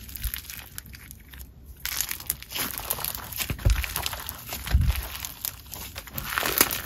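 Thick clay slime mixed with crunchy bingsu beads being squished and stretched by hand, giving a dense run of crunchy crackles, with a couple of soft low thuds near the middle.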